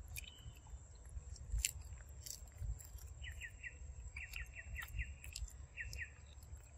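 A macaque biting and chewing soft yellow fruit, with scattered small wet clicks. From about three seconds in come quick runs of short, high, falling chirps.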